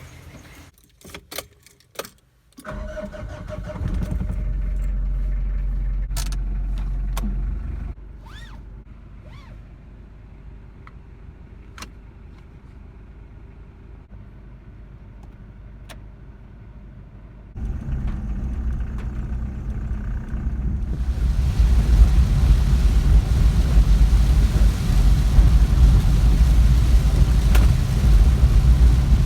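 A few sharp clicks, then a car engine starts about three seconds in. It runs louder for about four seconds, settles to a quieter idle, picks up again later, and the car pulls away with steady road and engine noise.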